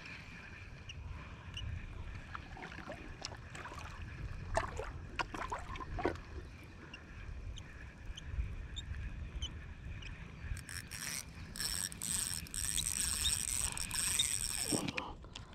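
Eagle Claw Pack-It spinning reel being cranked to bring in a hooked fish: scattered clicks and handling knocks, then a steady whir of the reel for about four seconds near the end.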